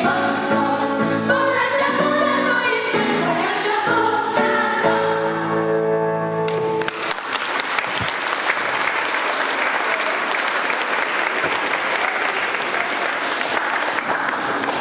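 Children's choir singing, holding the final chord of a song until it stops about seven seconds in, followed by audience applause.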